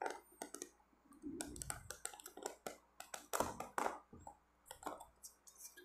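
Snap-on lid of a clear plastic compartment meal tray being pried open by hand: a run of irregular plastic clicks and crackles.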